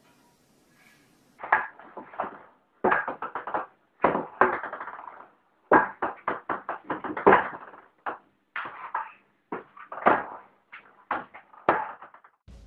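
Ping-pong ball bouncing on a table-tennis table, in runs of quick clicking bounces starting about a second and a half in.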